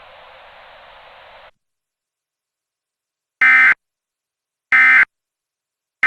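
A faint hiss that cuts off after about a second and a half. After a pause come short, loud, identical digital data bursts of an Emergency Alert System SAME signal, the end-of-message sequence: two full bursts about 1.3 s apart, and a third starting at the very end.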